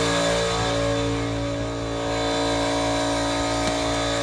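Air compressor running, a steady machine hum that holds the same pitch throughout.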